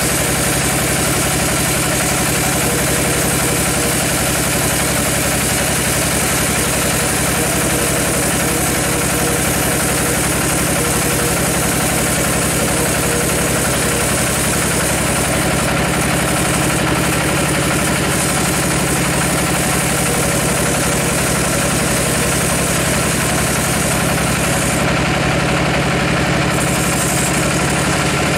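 Large band sawmill running steadily, its blade sawing a thick board off a giant teak log: a constant machine drone with a steady low hum.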